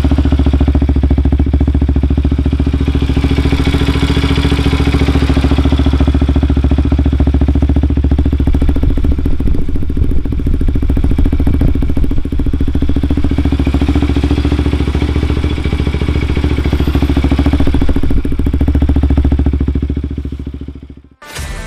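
Bajaj Pulsar NS200's single-cylinder engine running steadily through a Yoshimura full-carbon aftermarket exhaust. The sound stops abruptly near the end.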